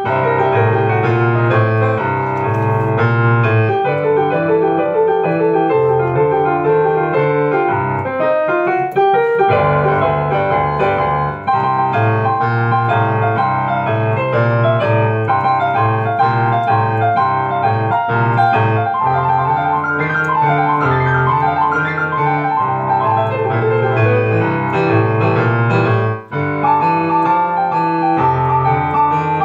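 Upright piano played: a repeating bass line in the left hand under chords and melody in the right, with a fast upward run about nine seconds in.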